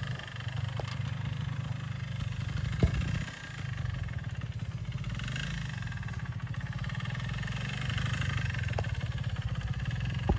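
Sidecar trials outfit's motorcycle engine running at low revs as it is ridden slowly. There is a sharp knock about three seconds in, the engine sound briefly drops, and another knock comes near the end.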